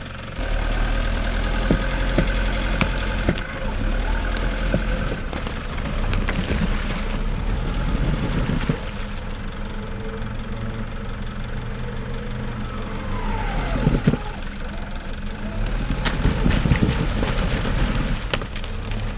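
Off-road vehicle engine running at uneven load, its level rising and falling, with scattered sharp knocks and clunks.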